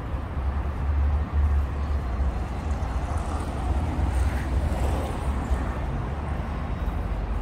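Outdoor city street ambience: a steady low rumble, with a broader wash of traffic-like noise swelling around the middle.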